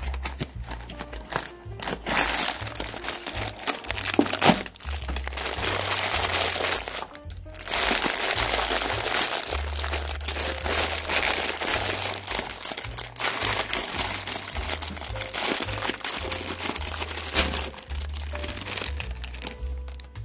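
Plastic candy packaging crinkling and crackling as it is handled and squeezed: a box's inner foil-and-plastic packet, then a clear plastic bag of individually wrapped candies. There are two long stretches of crinkling with a short pause between them, over background music with a steady bass line.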